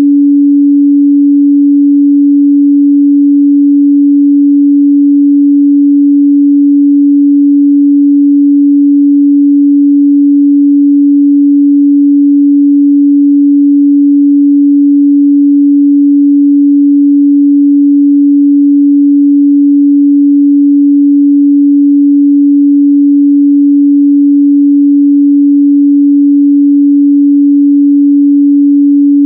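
Steady 285 Hz pure sine-wave test tone, held at one pitch and constant loudness.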